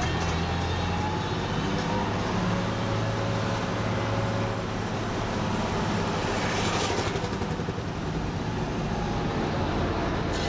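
Vehicle engine running with road noise, heard from inside the cab while driving.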